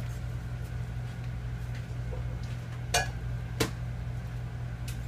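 A few sharp clinks of a metal spoon against kitchenware, two close together about three seconds in and a fainter one near the end, over a steady low hum.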